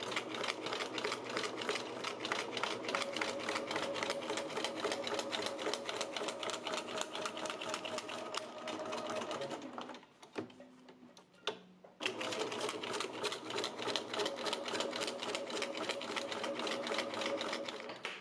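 Domestic sewing machine free-motion stitching through a cardboard postcard with the feed dogs lowered, the needle running in a rapid, even rhythm of strokes. It stops for about two seconds a little past halfway, with a couple of clicks, then runs again.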